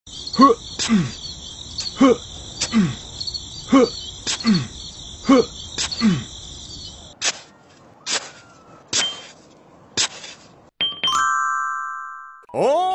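Added cartoon-style sound effects over a background of chirping birds: a run of strokes about two a second, each sliding down in pitch. Then a few sharp knocks about a second apart, and a sustained chime that rings and fades out, the kind of sparkle that marks a gold find.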